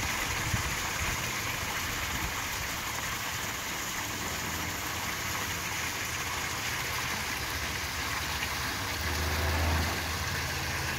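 Water pouring steadily from a stainless steel spillway into a garden pond, a continuous splashing like rain. A low hum comes in near the end.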